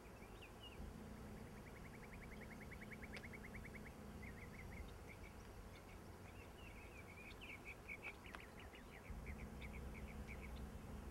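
Faint birdsong: a rapid, even trill lasting about two seconds, then a run of quick repeated chirps. A low steady rumble sits underneath.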